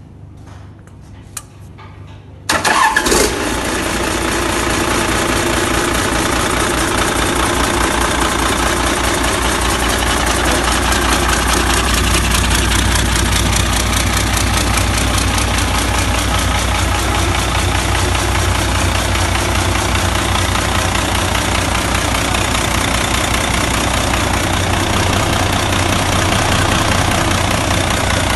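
Doosan Daewoo DE08 Tis inline-six turbo diesel on a test stand starting: after a couple of faint knocks it fires abruptly about two and a half seconds in and settles straight into a steady idle.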